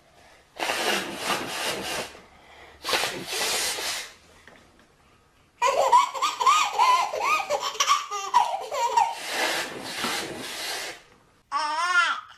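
Loud, hissy nose blows, twice and then once more, set a baby off into bouncing fits of giggly belly laughter. Near the end, after a cut, another baby gives short squealing laughs.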